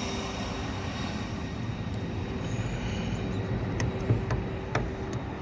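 Engine noise of a passing vehicle or aircraft fading away, leaving a faint steady hum. In the second half come a few sharp light clicks and knocks.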